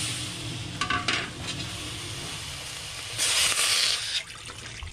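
Sliced tomatoes and onions sizzling in hot oil in a stainless steel wok as they are stirred, with a few light clicks of the utensil against the pan. A louder hiss flares up about three seconds in.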